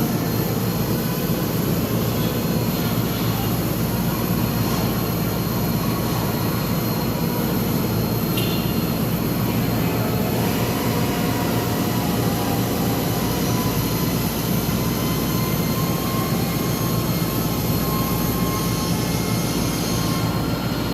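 A machine running steadily: an even, unbroken low drone.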